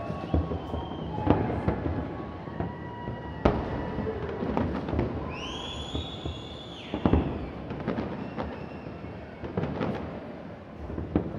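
Aerial fireworks bursting in a continuous run of bangs and crackles. About five seconds in, a whistle rises in pitch and holds for a second or so.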